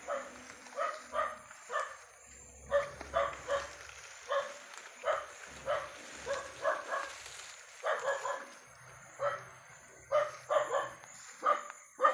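A dog barking over and over in short runs, about two barks a second. The barking is typical, the hunter says, of a dog that has spotted a wild animal.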